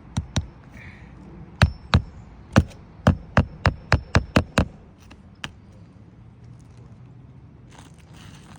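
Hammer driving roofing nails into asphalt shingles: about a dozen sharp blows, two near the start, a few spaced strikes, then a quick run of seven at about four a second.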